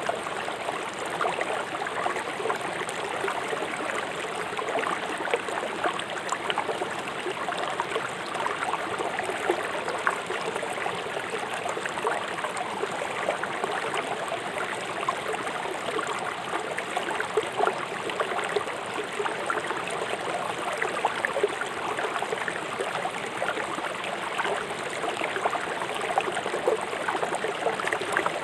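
Fast-flowing river rushing over stones: a steady wash of water with constant small splashes and gurgles.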